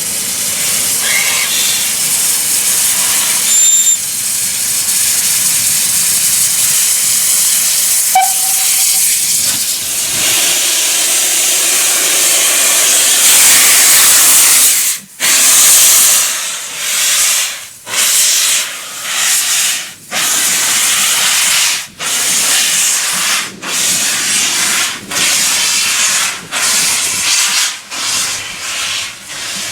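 Steam locomotive hissing steadily, then starting to move: slow exhaust chuffs begin about halfway through and gradually quicken as it pulls away.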